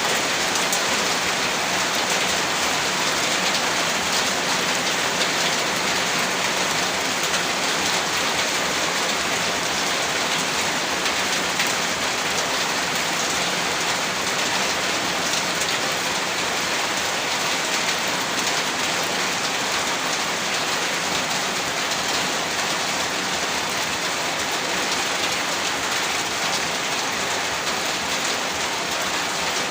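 Heavy rain falling steadily, a dense, even hiss of drops hitting a surface.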